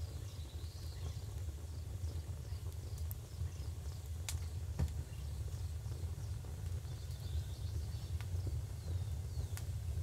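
European starlings chirping in short falling calls, bunched near the start and again about seven seconds in, over a steady low rumble, with a few sharp clicks in between.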